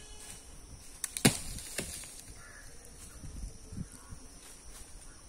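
A few sharp knocks close together about a second in, the middle one much the loudest, over a steady high drone of insects.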